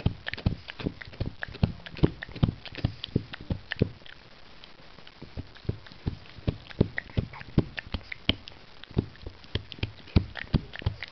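Pug chewing a long chew stick: a steady run of short, irregular clicks and crunches from teeth and jaws, about three a second, thinning out for a moment about four seconds in.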